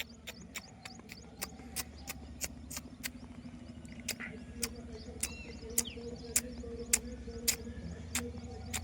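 A steady series of sharp clicks, about two a second, over a low steady hum, with a few faint bird chirps.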